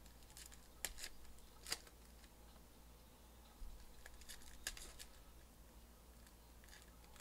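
Foil wrapper of a Panini Donruss Elite football card pack crinkling and tearing as it is pulled open by hand: a few short crackles about a second in, another cluster around four to five seconds in, and a faint one near the end.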